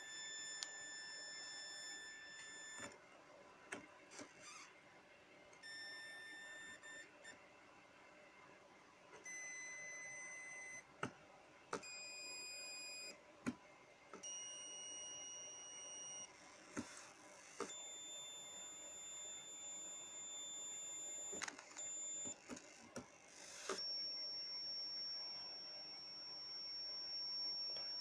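Drawdio timer-chip oscillator sounding a steady electronic beep tone whose pitch changes as its potentiometer is turned, the circuit's resistance setting the frequency. The tone holds for a second or a few, breaks off with short clicks, and comes back at a new pitch, stepping mostly higher until it ends on a high whistle.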